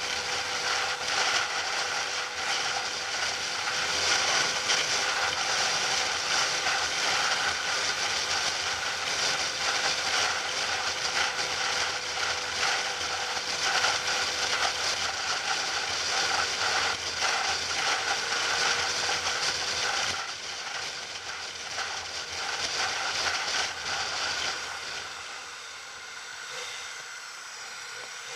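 Onboard riding noise from a motorcycle at steady road speed: wind rushing over the helmet over a steady engine drone. It gets quieter in the last few seconds as the bike slows.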